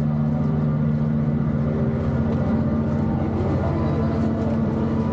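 Steady low machinery drone from a moored naval patrol ship's onboard machinery running at the quayside, holding several unchanging hum tones.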